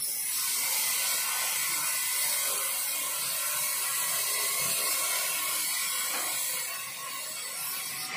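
Large vertical band saw ripping lengthwise through a log as it is fed along the table: a steady, loud, high hiss of the blade in the wood that eases off about seven seconds in.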